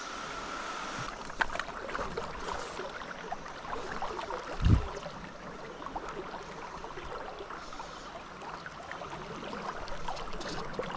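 Stream water rushing steadily over rocks, with a few small clicks and one dull low thump a little before the middle.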